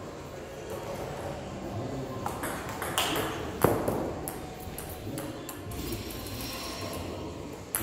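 Table tennis rally: the celluloid ball clicking off rubber bats and bouncing on the table in quick alternation. The rally ends after about three and a half seconds with one sharp, loud knock, the loudest sound here, then only a few scattered clicks in a hall with some echo.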